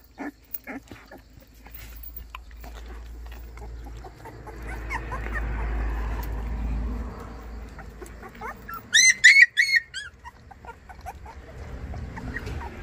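White baekgu puppy squealing: a quick run of about five short, high-pitched squeaks a little after the middle, with fainter thin whines before it.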